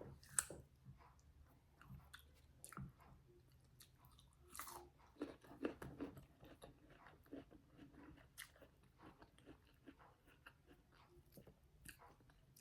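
Faint close-up chewing of fresh guava, soft irregular crunches and mouth clicks.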